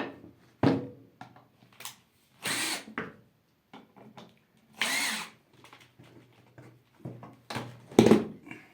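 Workshop handling sounds: wooden knocks and clatter, with two short bursts of machine noise about half a second each, and the loudest knock near the end.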